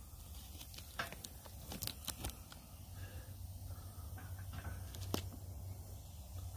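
Faint handling noises as thick-cut bacon slices are pulled from their plastic pack and set into the wire rack of a copper bacon tray: a few soft clicks and rustles, about a second in, around two seconds in and near five seconds, over a low steady rumble.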